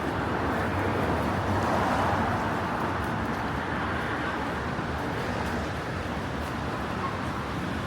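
City street in the rain: traffic on a wet road, tyres and engines making a steady noise that swells as a vehicle passes about two seconds in.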